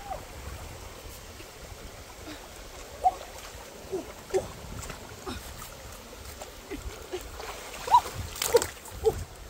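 Water splashing as a large catfish is wrestled by hand in a shallow stream, with a bigger splash about eight and a half seconds in. Brief high cries come at intervals, the loudest near three and eight seconds in.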